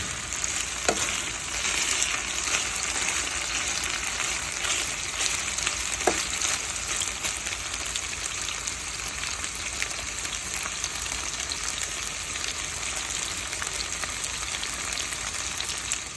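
Chopped chicken breast sizzling in olive oil in a pan, a steady crackle as the juices have cooked off and the meat browns. A couple of single clicks stand out, about a second in and about six seconds in.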